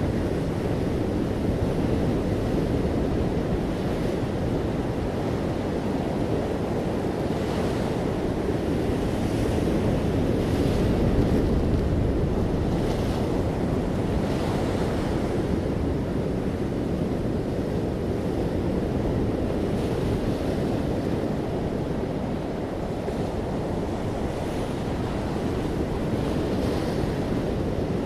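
Ocean waves on a beach: a continuous rush of surf that swells a little near the middle.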